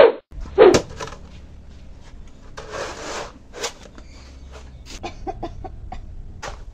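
Scattered knocks and taps from things being handled, with a brief scraping rub about three seconds in.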